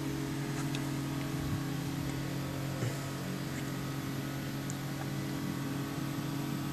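Steady low machine hum with several pitches, unchanging, with a few faint clicks.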